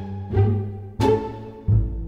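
Background music: a string tune with low, drum-like bass notes, a fresh plucked or struck note about every half second.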